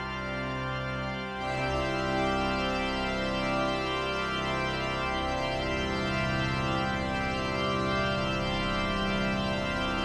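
Organ music of long sustained chords, growing fuller about a second and a half in.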